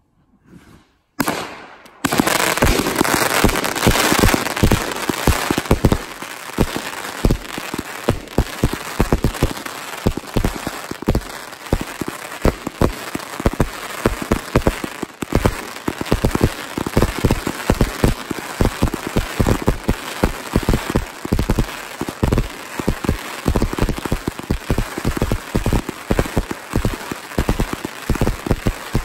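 Vulcan Cheetah (DA237) firework going off: a quiet start, a single bang about a second in, then from about two seconds on a dense, unbroken barrage of rapid shots and crackling stars.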